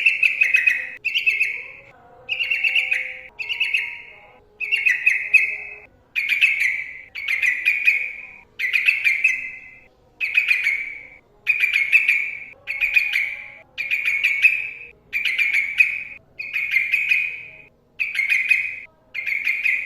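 Yellow-vented bulbul (trucukan) singing the same short bubbly, ringing phrase over and over, about one phrase a second with brief pauses between.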